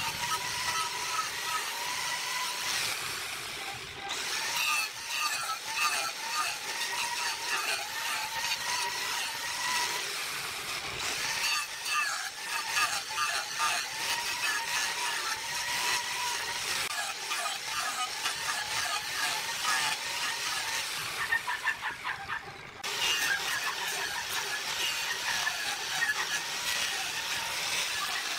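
Electric angle grinder running with an abrasive disc pressed against wood, sanding and shaping the rim of a wooden vase: a steady motor whine under a scratchy grinding noise. The grinding lets up briefly a little before the end, then carries on.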